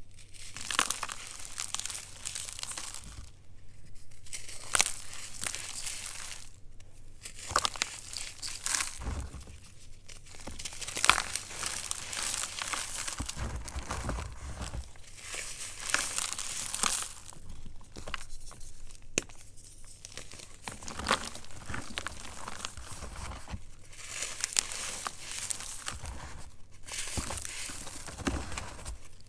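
Reformed Ader gym chalk crumbling and crunching as fingers squeeze and crush it into powder, in crackly bursts a second or two long with short pauses between, and sharp snaps as pieces break.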